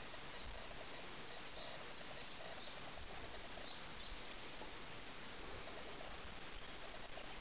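Quiet outdoor background: a steady hiss with faint, short high chirps scattered through it.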